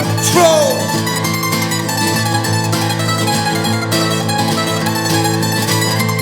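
Background music: an instrumental passage of a folk-rock song, with fast plucked strings over a steady accompaniment.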